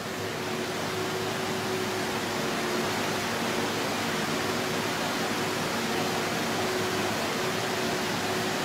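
Walking excavator's engine running steadily: an even, unchanging noise with a constant hum underneath.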